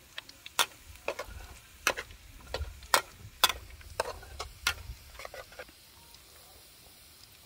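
Metal spoon clinking and scraping inside a glass jar as seasoning is scooped out: an irregular run of sharp clicks and taps that stops about five and a half seconds in.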